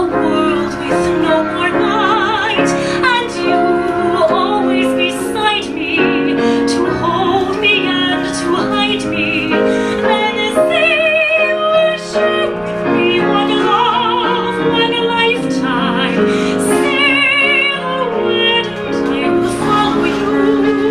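A woman singing a musical-theatre ballad with vibrato on long held notes, accompanied by piano.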